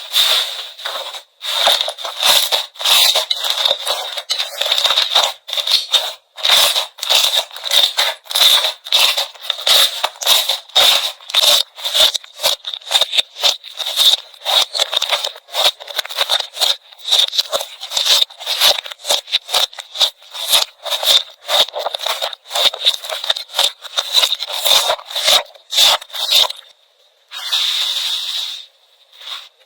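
Slime being pressed and squished by hand: a dense run of short crackling, popping sounds, several a second, which breaks off a few seconds before the end, followed by a quieter hiss.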